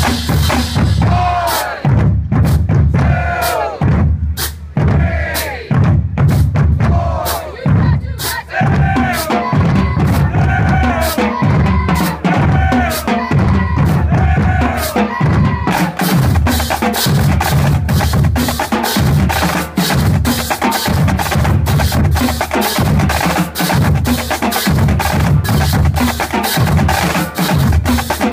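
High school marching drumline playing: heavy bass drums with snares and pitched drums. In the second half a fast run of sharp clicks joins in.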